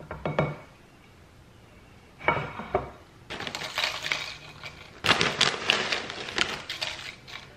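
A few light knocks on a ceramic plate, then from about three seconds in the crackle of a potato chip bag being shaken and kettle-cooked chips clattering and crackling onto the plate, busiest in the last couple of seconds.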